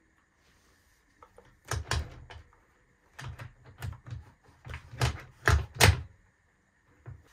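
A series of sharp knocks and clacks as the chain and guide bar of a cordless chainsaw are handled and fitted, loudest about five to six seconds in.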